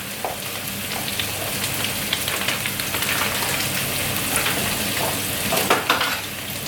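Green curry paste frying in hot oil with garlic and onion: a steady sizzle, with a few utensil clicks against the pan near the end from stirring.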